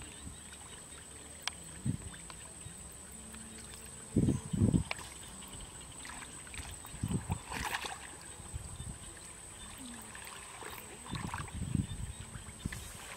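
Hands and legs sloshing and splashing in shallow muddy water as someone gropes in the mud by hand for fish, in a few separate bursts, the loudest about four seconds in. A steady high-pitched tone runs underneath.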